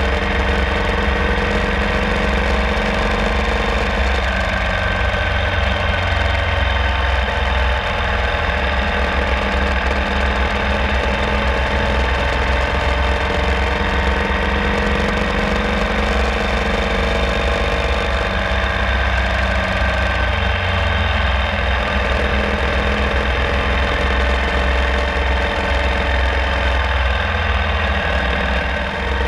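URAL Classic sidecar motorcycle's air-cooled boxer twin engine running steadily under way, its pitch rising and falling a little with the throttle.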